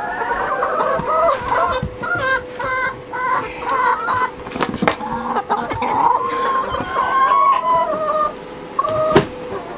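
Several hens clucking with many short, overlapping calls as they feed on bread, with scattered sharp taps among them.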